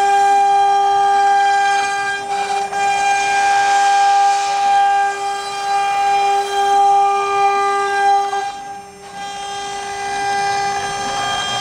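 CNC router spindle running steadily with a high, constant whine, with some extra cutting noise a few seconds in and a brief drop in level about nine seconds in.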